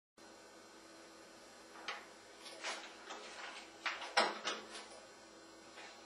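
A Fastbind Optima strip binding machine handled by hand: a run of short sliding and clunking sounds from its clamp and moving parts, the loudest about four seconds in, over a faint steady hum.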